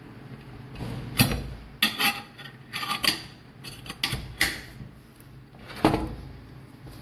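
A series of sharp clicks and knocks, about ten in all, as a hard object is handled, with the loudest knocks about a second in and near the end.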